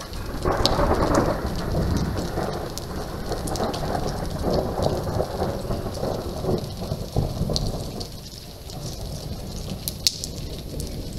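Thunder rumbling over falling rain: a long roll that swells about half a second in and dies down after about eight seconds, with scattered sharp drip ticks throughout.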